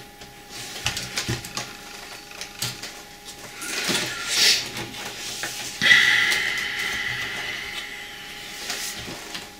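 Small clicks and knocks of a cassette deck's casing and parts being handled during disassembly, then a sudden longer sound with a steady high note about six seconds in that fades away over a couple of seconds.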